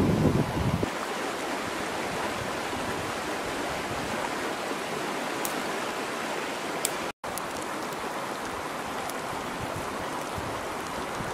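Steady rushing of a flowing river, with a low thump right at the start and a brief dropout about seven seconds in.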